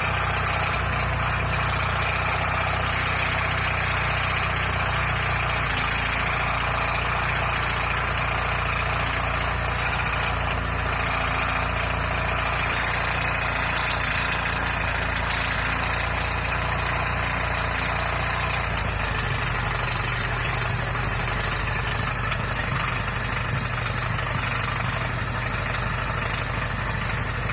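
VAZ-1111 Oka's two-cylinder engine idling steadily with a knock from the coolant water pump, which started knocking about 100 km after the pump was replaced.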